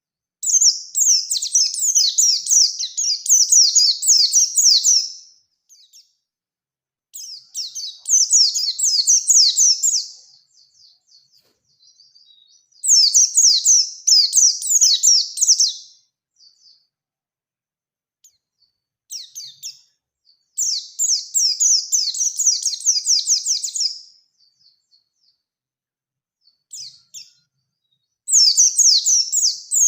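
A white-eye (pleci) singing its long, rapid-fire song in high-pitched phrases of three to five seconds each, with short pauses between, five phrases in all, the last starting near the end.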